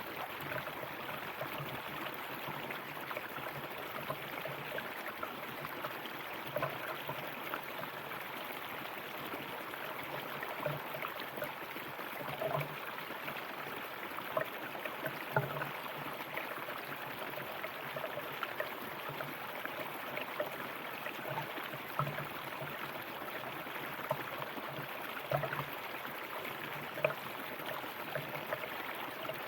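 River water flowing steadily over rocks, with small gurgles and splashes scattered through.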